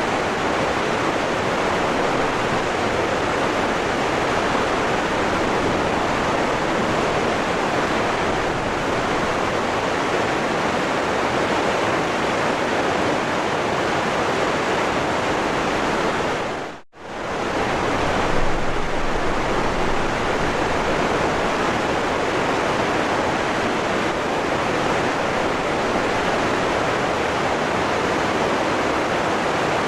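Waterfall rushing steadily, an even roar of falling water. About 17 seconds in the sound dips sharply and comes straight back, a quick fade out and in.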